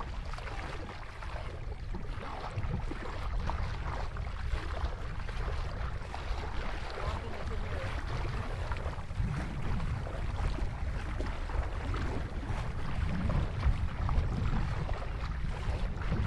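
Feet wading and splashing through shallow water, a steady crackling slosh, over a constant low rumble of wind on the microphone.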